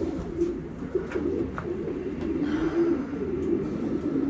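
Racing pigeons cooing in a steady, low warbling murmur, with a few light clicks.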